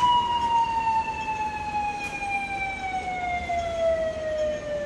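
Emergency vehicle siren sounding one long tone that falls slowly and steadily in pitch, getting a little quieter toward the end, over faint street traffic.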